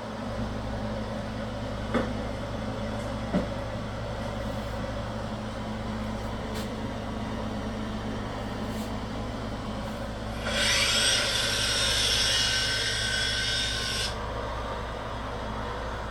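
Woodshop tool work on wood over a steady low hum, with two sharp knocks early on. About ten seconds in, a loud hissing tool noise with a thin whine in it starts and runs for about three and a half seconds, then cuts off.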